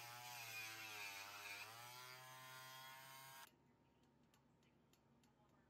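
Faint whine of a small electric rotary tool grinding away excess aluminium from a bulkhead's cutout, its pitch sagging under load and recovering. It cuts off suddenly about three and a half seconds in, leaving near silence.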